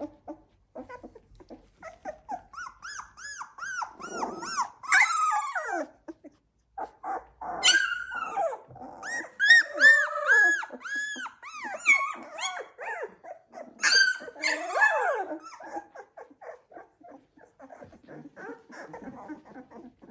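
A litter of 16-day-old Labrador retriever puppies whining and squeaking: many short, high-pitched, rising-and-falling cries overlapping one another, busiest in the middle and thinning out near the end.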